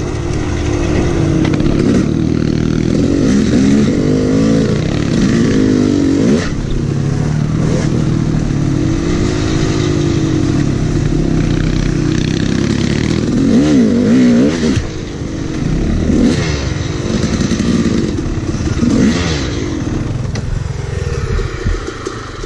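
Dirt bike engines riding a rough trail, revving up and down every second or two. The engine sound eases off near the end as the bikes slow.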